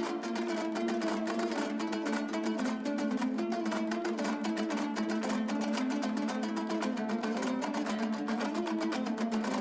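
Background music: a fast, plucked string instrument playing a quick run of notes.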